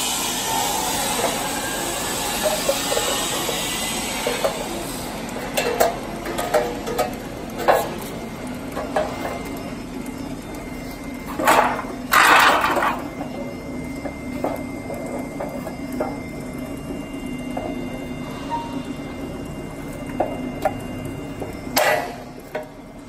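Steel door-frame profiles being fitted together by hand: scattered metallic clicks and taps as a screwdriver-type tool works the corner tabs. Two loud scraping bursts come about halfway through, over a steady low hum.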